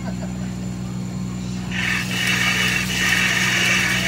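Steady low hum, joined about halfway through by a loud hiss.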